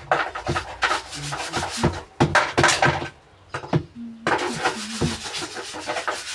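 Scrubbing a washing machine clean: a quick, irregular run of rubbing strokes that stops for under a second a little after three seconds in, then carries on.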